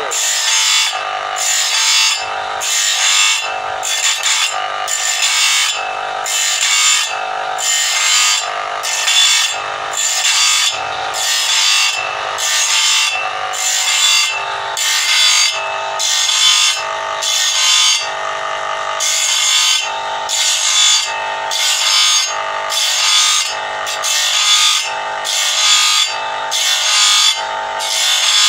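Electric motor with an abrasive grinding disc on its shaft, sharpening a long sawmill saw blade tooth by tooth. Each tooth gets a short rasping grind, about three every two seconds, over the motor's steady whine.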